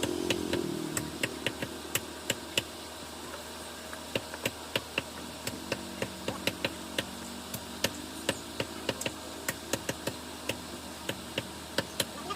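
Cleaver chopping through chicken on a chopping block: a steady run of sharp chops, about two to three a second and unevenly spaced.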